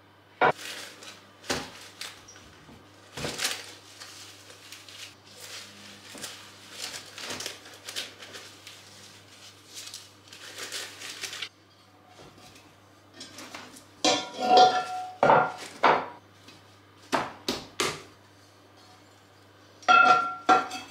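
Leaves and stalks rustling and scraping as greens and celeriac are pushed into a heavy black pot. Then come sharp knocks and ringing clinks of the pot and kitchen metalware, and near the end the clatter of the pot's lid being set on.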